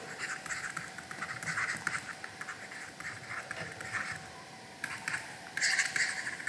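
Stylus scratching and tapping across a writing tablet in short strokes as handwriting is written, with a louder stretch of strokes near the end.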